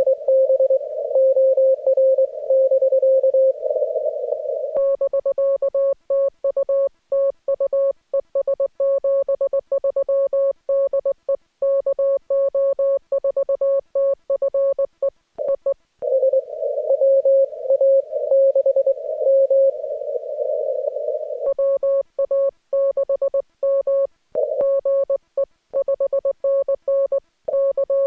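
Amateur radio Morse code (CW): one steady tone keyed rapidly into dots and dashes. It switches back and forth between a signal with a band of hiss around it and a cleaner, sharper-edged tone, about 5 s in, about 16 s in and about 21 s in, as two stations send in turn.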